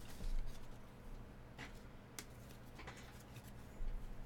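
Trading cards being handled: a few soft, separate clicks and slides of cards over a low steady hum.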